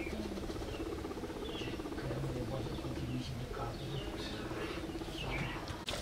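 Guinea pigs purring and chuttering: a steady, fast-pulsing low buzz with short high squeaks scattered through it.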